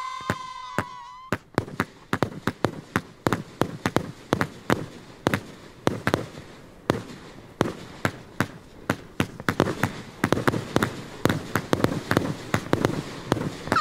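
Fireworks going off in a rapid barrage, several sharp bangs and cracks a second over a steady crackle.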